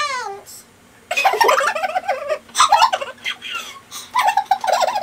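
Two women giggling and laughing in repeated bursts, starting about a second in. At the very start, a short squeaky voice sound falling in pitch.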